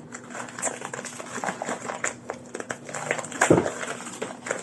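Package being handled: irregular rustling and clicking, with one louder knock about three and a half seconds in.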